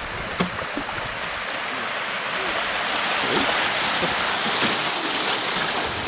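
River water rushing over a shallow riffle around a small boat running the current, a steady hiss that swells louder about two seconds in. A single light knock sounds near the start.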